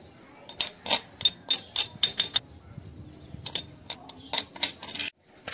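Metal spoon clicking and scraping against a ceramic plate as a minced mixture is stirred: quick clicks about three or four a second, a short pause near the middle, then another run.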